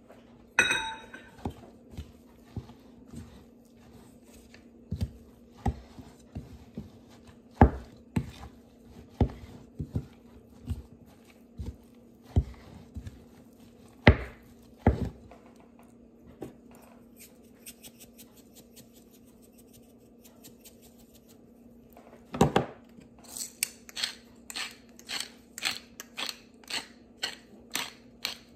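A wooden spoon knocks and scrapes in a ceramic bowl, mixing a grated-carrot meat filling, with a ringing clink about half a second in. Near the end a hand spice grinder is twisted over the bowl in a quick run of gritty grinding strokes, about two a second.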